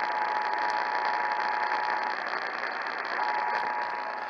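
Emergency Alert System two-tone attention signal coming through a weak radio station under heavy static hiss. The tone drops out for about a second midway, then resumes.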